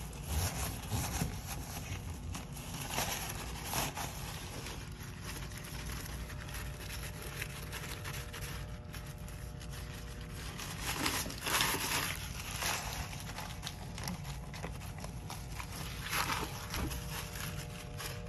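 Paper towel rubbing and wiping over a porcelain sink and chrome faucet, scrubbing off toilet bowl cleaner and hard-water buildup. It comes as irregular swishes in several bouts, the longest and loudest about two-thirds of the way through.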